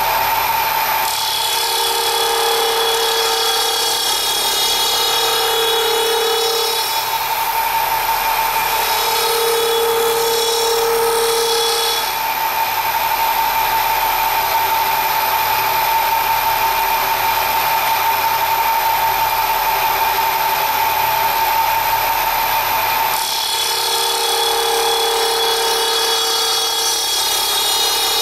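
Rotating gear cutter running steadily as it mills teeth into a yellow plastic gear blank on a dividing attachment, giving a steady machine whine. A rougher cutting sound joins it for about ten seconds from about a second in, and again for the last five seconds.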